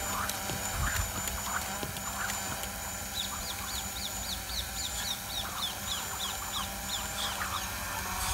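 Birds singing: a quick run of short falling notes, about three a second, from about three seconds in until near the end, over other scattered bird chirps.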